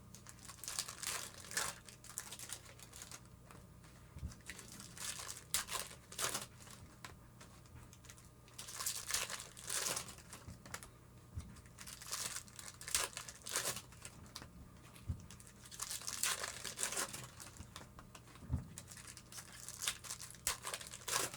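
Foil baseball card pack wrappers being torn open and crinkled by hand, in irregular crackly bursts.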